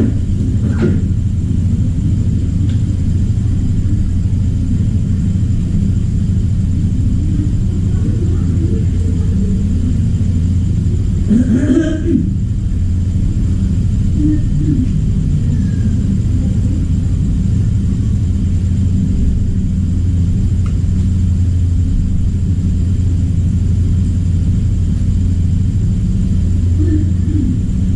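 Steady low electrical hum that holds an even level throughout, with a short faint sound about twelve seconds in.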